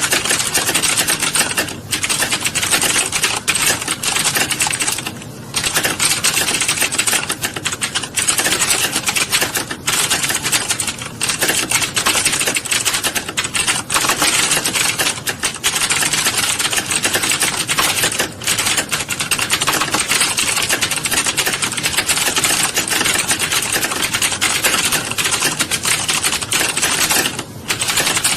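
Fast, continuous typing on a keyboard: a dense, unbroken stream of key clicks with a few short pauses, one about five seconds in and one near the end.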